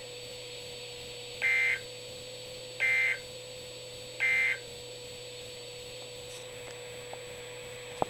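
Three short bursts of warbling SAME data tones from a NOAA weather alert radio's speaker, each about a third of a second long and spaced about a second and a half apart: the end-of-message code that closes an emergency alert broadcast. A faint steady hum and hiss from the receiver runs between them.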